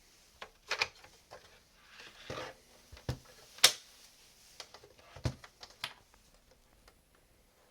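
Scattered clicks and knocks of hands handling a USB cable and the back of an oscilloscope as the cable is plugged in, the sharpest click about three and a half seconds in.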